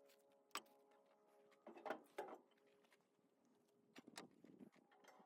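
A few faint clicks and small knocks of parts and hardware being handled: one about half a second in, a cluster around two seconds in and a few more near the end.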